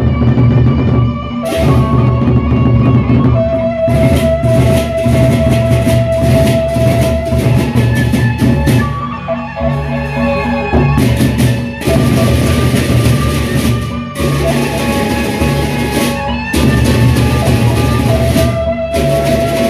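Lombok gendang beleq ensemble playing: large double-headed barrel drums beaten in a driving rhythm with gongs, under repeated bursts of clashing cymbals and a long held high note.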